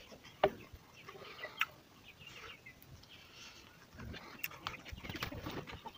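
Eating sounds close to the microphone: chewing and wet lip smacks while eating pork and rice by hand, with a few sharp clicks.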